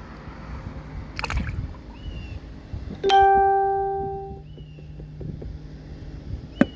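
A single ringing note, like a plucked string, struck about three seconds in and fading away over about a second and a half, with a few faint short high chirps around it.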